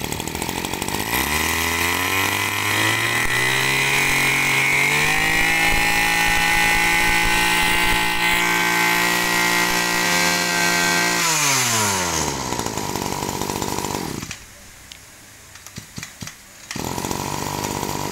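A small two-stroke brush cutter engine (30 mm bore, 20 cc) is idling when the throttle is opened about a second in. It rises to high revs, holds there for several seconds, then drops back to idle after the throttle is released. Near the end it briefly goes quiet with a few knocks, then idles again.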